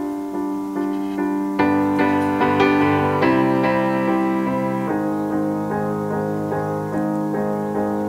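Slow solo piano music, with fresh chords struck about a second and a half in and again about five seconds in.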